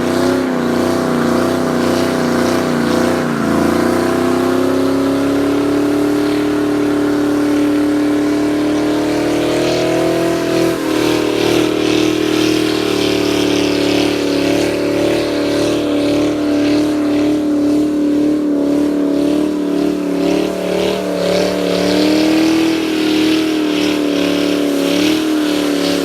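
Car engine held at high revs, its pitch mostly steady, with small rises and dips a few times.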